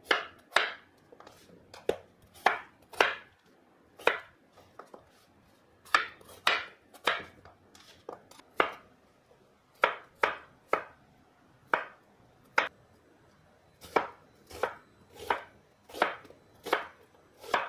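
Chef's knife chopping peeled potato into chunks on a cutting board, then slicing an onion near the end: single knife strokes knocking on the board, often one or two a second in runs, with short pauses between.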